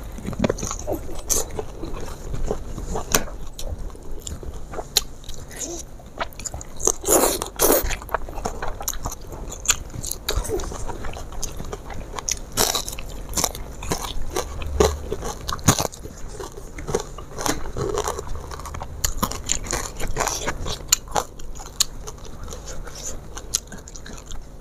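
Close-up sound of a person eating: crunchy bites and chewing in an irregular run of crackles, loudest about seven to eight seconds in.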